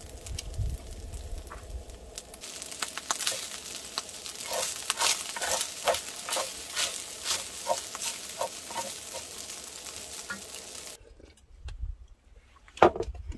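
Seafood fried rice sizzling in a black steel frying pan while a wooden spatula stirs it, with repeated scrapes and taps against the pan. The sizzle stops suddenly near the end, followed by one loud sharp knock.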